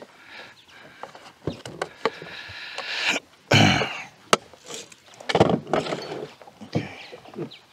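Hard plastic clatter of a folding fish-measuring board being handled and folded shut on a kayak deck: a string of knocks and clicks, with a louder scraping rush a little past halfway and another shortly after.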